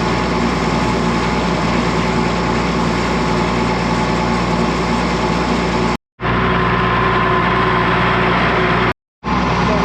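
Farm tractor engine running steadily at low revs under load, heard from the cab. The sound cuts out completely twice, briefly, about six and nine seconds in.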